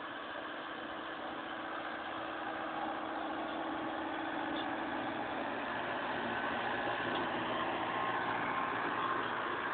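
Tractor diesel engine running steadily while pulling a plough, growing gradually louder as the tractor draws nearer.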